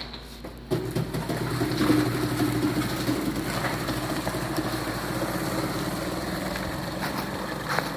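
Electric-converted youth Polaris Sportsman ATV driving off, its electric motor and gearbox giving a steady hum. The hum starts suddenly about a second in and holds fairly even, with a stronger tone for a second or so shortly after it starts.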